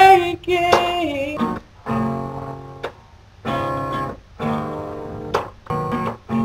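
Acoustic guitar strummed in separate chords, each ringing and fading, with a sung note sliding down and ending about a second and a half in.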